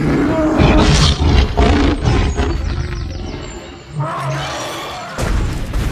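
Sound-effect dinosaur roars: one long roar that fades over about four seconds, then a shorter roar, and another after a brief gap near the end.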